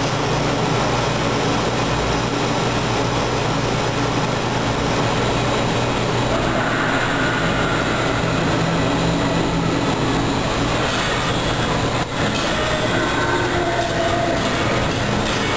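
Mirage–Treasure Island tram running along its guideway, heard from inside the car: a steady rumble and hum, with a couple of brief squeals partway through and a short knock about twelve seconds in.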